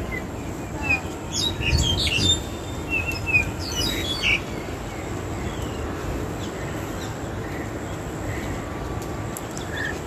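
Starlings (jalak) chirping and whistling: a busy run of short calls in the first few seconds, then only a few scattered notes.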